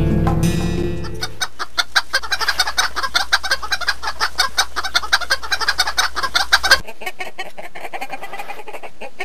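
Music ends about a second and a half in, giving way to chickens clucking in a rapid, dense run. The clucking drops quieter about seven seconds in and carries on.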